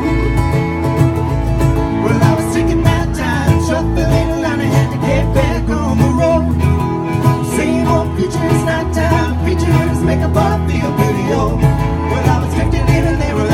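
A string band plays live, with picked guitar, fiddle and bass in a country-bluegrass style.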